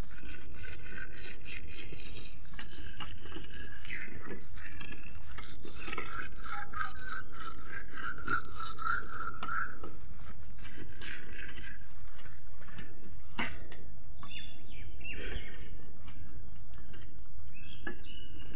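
A curved iron blade scraping and shaving along a bamboo pole in repeated strokes, with many short clicks of the blade on the cane.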